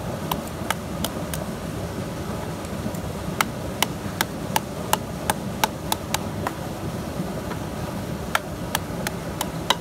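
A large kitchen knife chopping a pale vegetable stalk against a wooden plank. The blade knocks the wood in quick, even strokes about three a second, in three runs with short pauses between.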